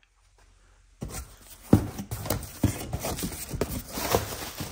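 A cardboard box is opened by hand and the plastic air-pillow packing inside is pushed aside, giving rustling and crinkling with irregular clicks and knocks. The sound begins after about a second of near silence.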